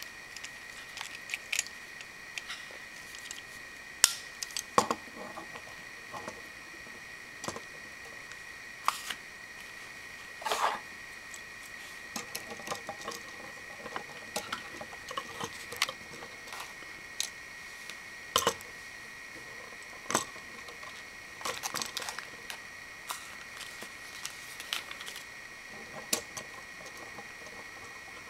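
Hard plastic Lego Bionicle parts clicking and knocking as they are handled and pushed onto ball joints, in scattered, irregular clicks. A steady high-pitched hum runs underneath.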